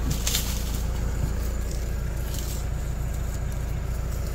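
Open safari jeep's engine running as it drives, a steady low rumble. Two brief bursts of hiss come through, one just after the start and another a couple of seconds later.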